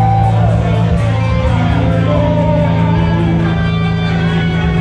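Live rock band playing loudly: an electric guitar lead with bending, gliding notes over sustained bass notes.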